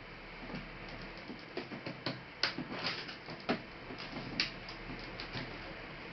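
Irregular clicks and taps of a plastic laptop case being handled and worked on with small tools, over a steady hiss, busiest in the middle.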